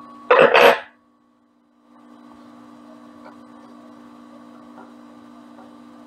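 Two quick, loud metallic clanks as the steel wrench and the lathe's change-gear parts are handled, followed by a steady low hum with a few faint clicks as the gear bracket is worked loose by hand.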